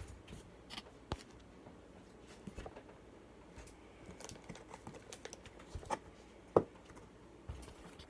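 Quiet, scattered clicks and taps of small objects being handled on a table, with one louder knock about two-thirds of the way through.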